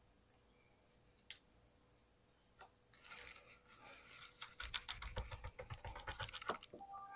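A knife scraping and cutting at a mango whose hard seed it keeps catching on: a rapid run of scratchy, rasping strokes with sharp clicks, starting about three seconds in, joined by dull knocks a second or so later.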